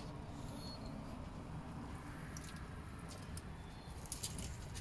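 Steady low rush of a gas burner flame as a whole raw chicken is held over it to singe off leftover feathers, with a few faint ticks near the end.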